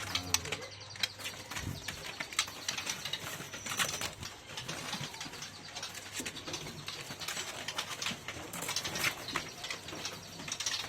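White-rumped shama (murai) giving scattered short clicks and brief chirps.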